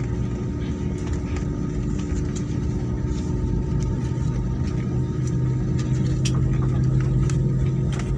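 Cabin noise of an Airbus A320-family airliner taxiing: a steady low jet-engine drone and rumble with a constant deep hum. It grows slightly louder in the second half, with a few light rattles.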